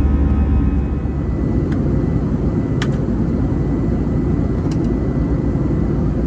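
Steady low rumble of an Airbus A320-214's CFM56 engines and airflow heard inside the passenger cabin. A set of steady tones fades out about a second in, and three short clicks come later.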